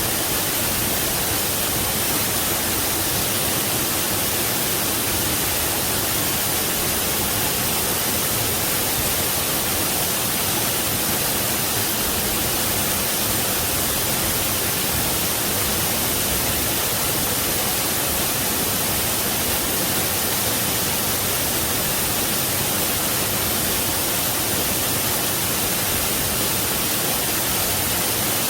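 Waterfall rushing steadily, an unbroken hiss with the most energy in the highs.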